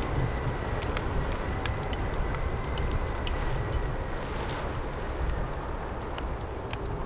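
Steady wind blowing, strongest in the low end, with many small scattered clicks over it.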